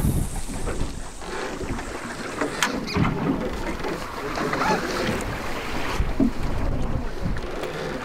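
Wind on the microphone and choppy sea water washing around a small fishing boat, with a few short sharp sounds about three seconds in.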